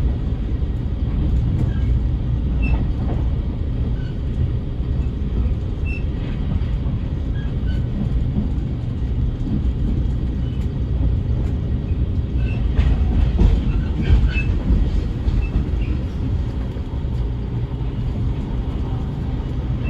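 Relay Kamome limited express train running at speed, heard from inside the carriage: a steady low rumble of wheels on the rails. A cluster of clicks and short squeaks comes about twelve to fifteen seconds in.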